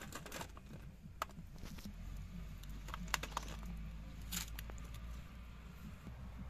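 Chunks of cut radish and tomato being set down on a perforated steel plate: a few light scattered clicks and taps over a low steady hum.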